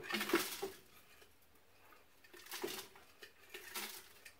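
Handling noises at a blender jar: short spells of rustling, scraping and light clattering as a container is worked at its top, three times.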